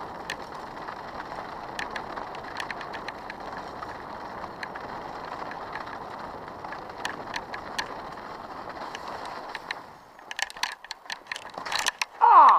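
Bicycle riding over snow: steady tyre noise with scattered clicks and rattles from the bike. About ten seconds in the steady noise drops away, a run of knocks and clicks follows, and it ends on a short loud burst with a falling pitch.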